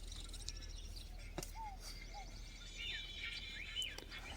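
Birds singing outdoors: a repeated pair of short falling whistled notes, with quicker high chirps building up in the second half. A single sharp click about a second and a half in.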